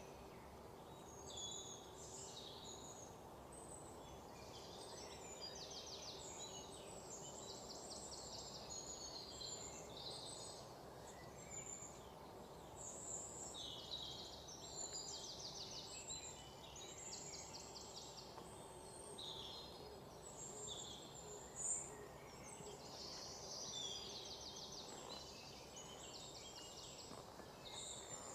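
Several songbirds chirping and singing fast trills, over a steady faint background hum. One brief, sharper sound stands out about two-thirds of the way through.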